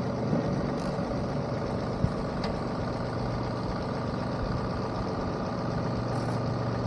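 John Deere 2038R compact tractor's three-cylinder diesel engine running steadily, with a single short click about two seconds in.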